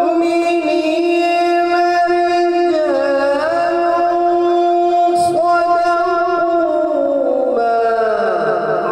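A man's voice reciting the Quran in a melodic chanting style, holding long steady notes and ornamenting them with slides between pitches. Near the end the voice sinks in a long falling glide.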